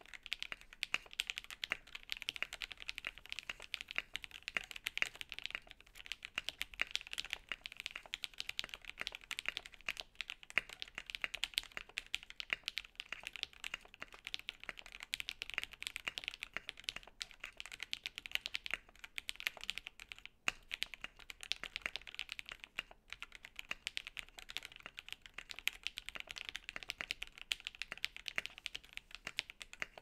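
Steady typing on a custom mechanical keyboard: a KBD8X MKII TKL with lubed and filmed Alpaca V2 linear switches in a polycarbonate plate, under PBT keycaps. A dense, even run of keystrokes with a couple of brief pauses.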